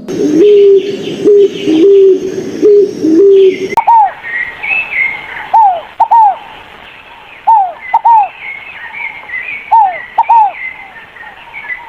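A dove cooing in a repeated low phrase of short notes. About four seconds in, it cuts to a different bird giving short downward-sliding notes, mostly in pairs, every second or two, with other birds chirping higher in the background.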